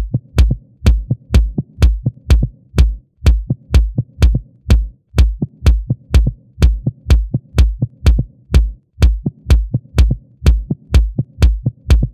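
Electronic dance music driven by a drum machine: a steady kick drum at about two beats a second with sharp hi-hat clicks.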